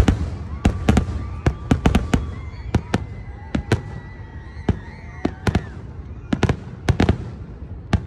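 Aerial fireworks shells bursting in a rapid, irregular volley of sharp bangs, about twenty in eight seconds, over a low rumbling echo.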